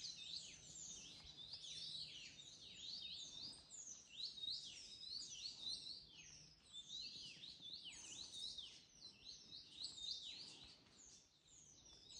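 Several forest birds calling at once: a faint, busy stream of short, high chirps, each sliding down in pitch, overlapping one another continuously.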